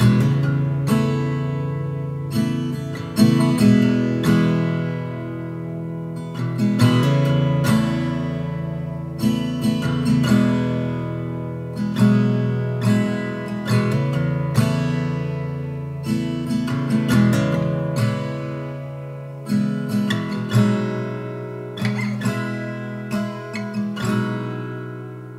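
Background music of plucked acoustic guitar: notes and chords struck one after another, each ringing and dying away, the music fading out near the end.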